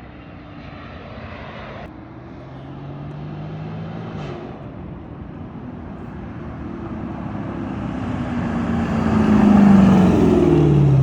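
A car's 392 V8 engine under acceleration, its pitch climbing as it builds to its loudest about ten seconds in, then sliding down in pitch at the end as it passes or eases off.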